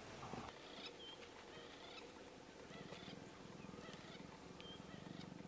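Faint wild birds calling: scattered short high chirps and whistles, over a low pulsing rumble that sets in about halfway through.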